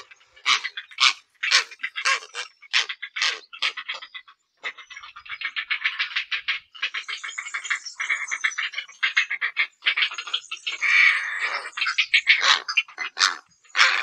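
Grey heron calling: short harsh calls about two a second, running into a fast chattering rattle in the middle, then single calls again near the end.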